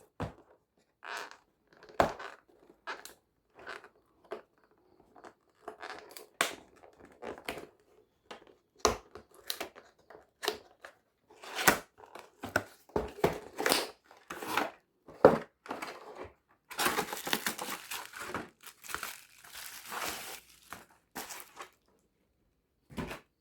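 Handling a new replacement laptop battery and its packaging: a string of small clicks and knocks, with a few seconds of rustling about three quarters of the way through.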